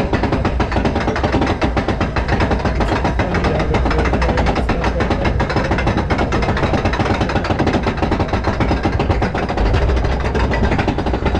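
Zamperla Windstorm roller coaster train running along its steel track: a loud, steady rumble with a dense, rapid rattle of the wheels and cars.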